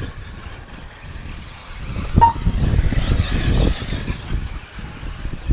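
Wind buffeting the microphone while a 1/8-scale electric RC buggy runs over the dirt track. A short beep sounds about two seconds in, and the buggy's tyre and motor noise swells over the next two seconds.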